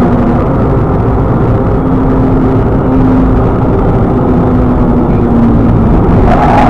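A moving car's engine and road noise: a steady low rumble with a faint hum. It grows a little louder and brighter near the end.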